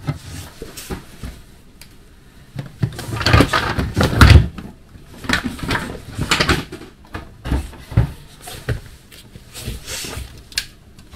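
Clear plastic storage tubs being shifted on a wooden shelf: a run of irregular scrapes and knocks, loudest about three to four seconds in.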